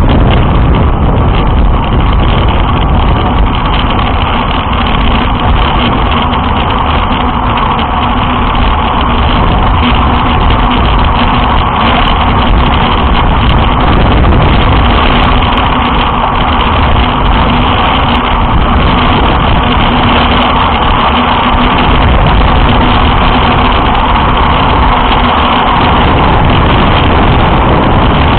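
Loud, steady wind rush buffeting the microphone of a bike-mounted camera on a fast road-bike descent, with a faint steady hum underneath that stops near the end.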